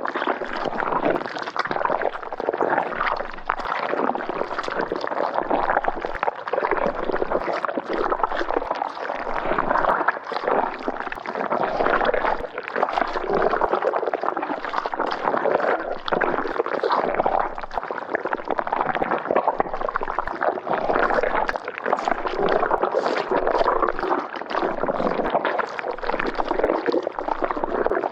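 Thick liquid bubbling and gurgling, a dense run of irregular popping bubbles that goes on without a break.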